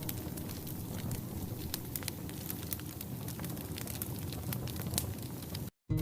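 Wood fire crackling in a fireplace: many sharp pops and snaps over a steady hiss. The sound cuts out completely for a moment near the end.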